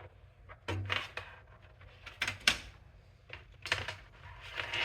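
Scattered clicks and knocks of hands working on a desktop computer and its cables, the sharpest about halfway through, over a faint low hum.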